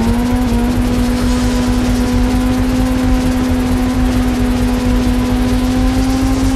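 Superbike engine held at steady high revs while riding fast, over a steady rush of wind noise. The engine note climbs slightly at the start, then holds one even pitch.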